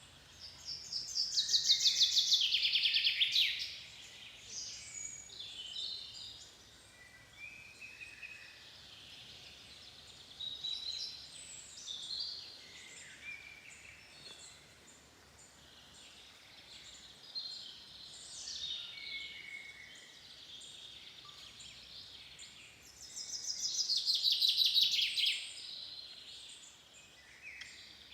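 Woodland birdsong. One bird sings a loud, rapid trilled song of two or three seconds twice, about twenty seconds apart, while other birds call and sing more quietly in between.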